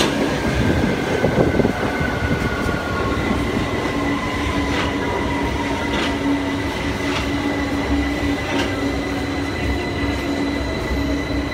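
London Underground Victoria line train (2009 Stock) running into the platform and braking to a stop: a motor whine that falls slowly in pitch as it slows, a few clicks from the wheels, then a steady electrical hum as it stands at the platform.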